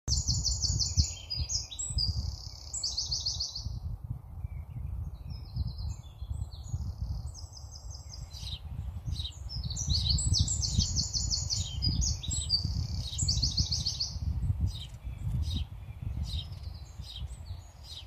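Garden songbirds singing, with quick trilled phrases repeating throughout, over a steady low rumble.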